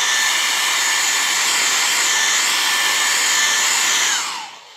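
Handheld hair dryer blowing steadily with a high motor whine, switched off near the end, the whine falling as the motor winds down.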